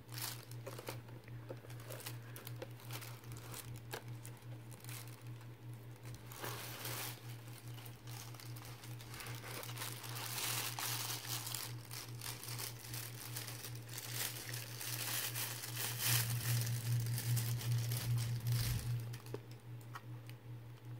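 Plastic shopping bags and toy blister packaging crinkling and rustling as they are handled, in irregular bursts, louder about halfway through and again near the end, over a low steady hum.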